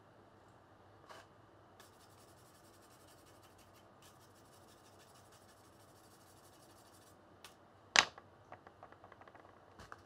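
Faint handling noises of an amplifier circuit board being turned over in the hands, with one sharp knock about eight seconds in and a few light clicks after it.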